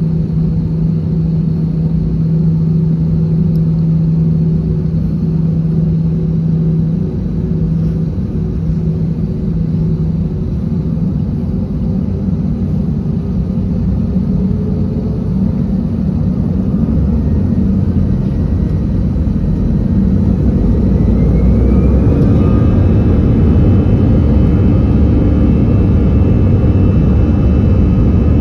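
Airbus A321's jet engines heard from inside the cabin over the wing: a steady rumble at low thrust while the airliner taxis, then about 20 seconds in the sound grows louder and a whine rises and holds as the engines spool up for the takeoff roll.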